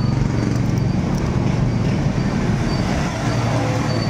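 Road traffic: a steady low motor-vehicle engine drone.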